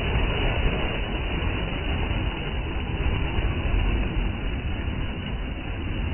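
Sea surf washing and foaming against rocks: a steady rushing rumble without separate crashes.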